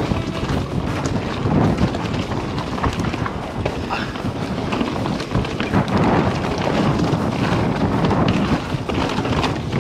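SCOR 4060 ST mountain bike descending a dirt singletrack: tyres rolling over leaf-covered dirt and stones, with frequent sharp rattles and knocks from the bike over bumps. Wind buffets the microphone throughout.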